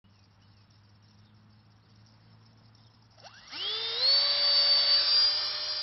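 The Mono-Phan 8 thrust-vectoring nano drone's small electric motor spins up about three seconds in with a quickly rising whine, then holds a steady high-pitched whine.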